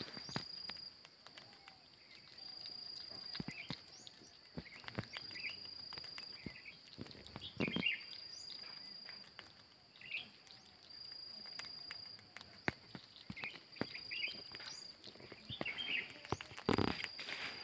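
Forest ambience: a high, steady note repeating about every two and a half seconds, with small bird chirps and scattered sharp clicks, the loudest about halfway through and near the end.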